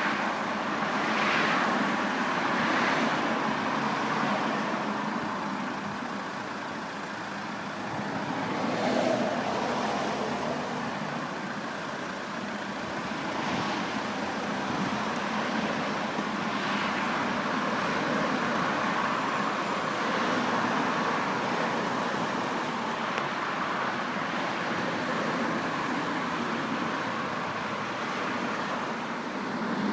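Steady road traffic noise, with vehicles swelling past every few seconds.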